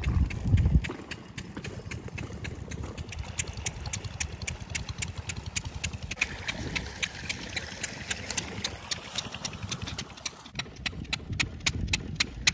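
Single-cylinder diesel water pump engine, an 8 hp set, running steadily with an even knocking beat, several knocks a second over a low rumble. A heavier low thump comes in the first second.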